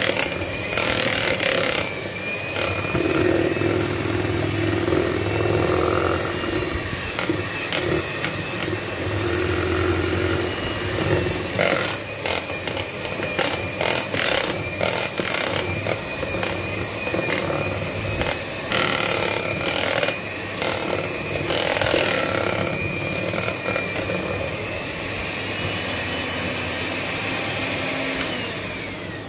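Electric hand mixer running steadily with a constant high whine, its beaters whisking buttercream in a bowl, with occasional knocks. The motor cuts off near the end.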